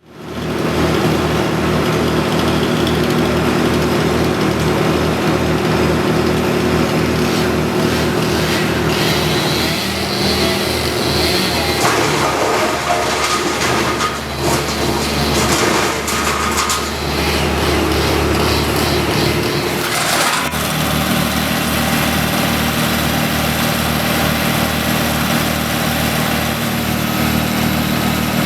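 An engine of tree-cutting machinery running steadily. From about 12 to 20 seconds in the sound turns rougher and noisier, with a few short cracks, before settling back to the steady running note.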